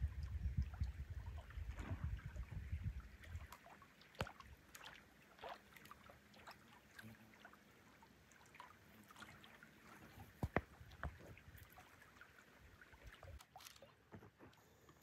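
Lake water lapping faintly in small splashes and ticks. Wind rumbles on the microphone for the first three seconds or so.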